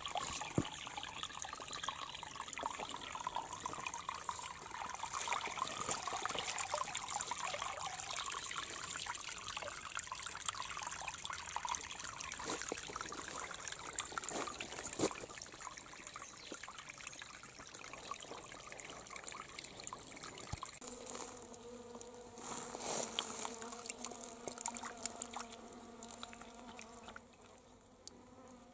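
Water trickling over rock into a small pool. From about three-quarters of the way through, an insect buzzes close by with a steady hum.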